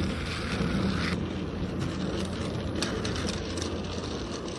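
Battery-powered Daiso Petit Train toy train running on plastic toy track: the small electric motor's steady whir, with irregular clicks and rattles as the wheels roll over the track.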